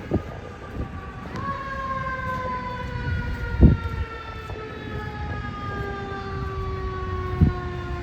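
Fire engine siren, revved up sharply about a second in and then slowly winding down in pitch. Two low thumps come through it, one near the middle and one near the end.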